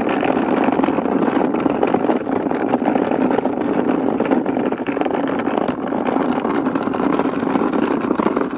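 Small wheels of a homemade wooden cart rolling over rough, cracked asphalt, a steady rumble as it is pulled along with a plastic crate on board.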